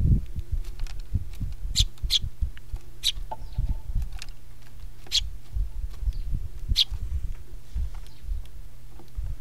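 Sparrows feeding on a wooden bird-feeder tray: irregular low knocks and thumps of pecking and hopping on the wood, with about five short, high chirps scattered through.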